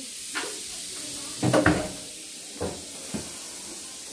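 A kitchen cupboard with a pull-out wire basket of stainless steel pots being opened and shut: a few knocks and clunks, the loudest about a second and a half in, over a steady hiss.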